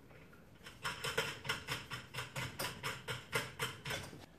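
Quick, light metallic clicking, about four clicks a second, as a nut and washer are worked by hand onto a threaded rod in a small plastic-and-mesh trommel cage. It starts about a second in.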